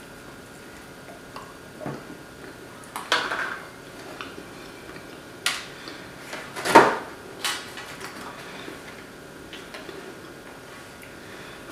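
A person biting into and chewing a lemon-filled iced donut, with a few short knocks and rustles of handling. The loudest comes about seven seconds in.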